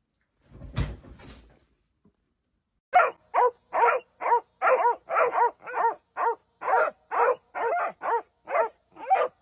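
A dog barking over and over, about two or three short barks a second, after a brief rustle near the start.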